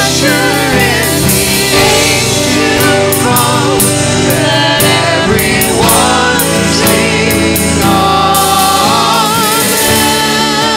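Live worship band: a woman and a man singing a song together over strummed acoustic guitar and electric bass.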